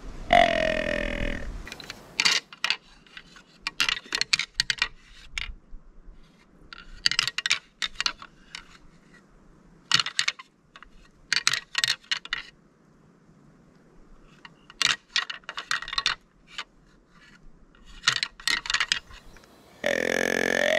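A deer grunt tube call blown in one grunt that falls slightly in pitch. Then a pair of deer antlers rattled and clashed together in about five bursts of rapid clacking with short pauses between them, imitating two bucks sparring. Another short grunt near the end.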